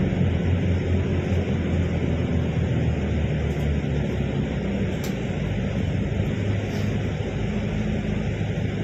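Steady low vehicle rumble.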